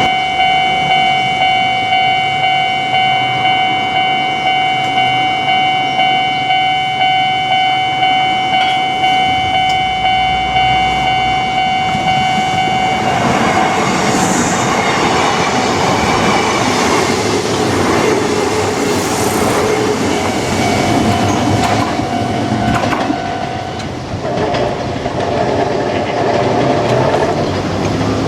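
Level-crossing electronic warning bell ringing in a steady repeated beat, a bit more than one strike a second. About 13 seconds in, a Kintetsu train passes over the crossing with a loud rumble and the clatter of wheels over rail joints. Near the end a steady tone rings again.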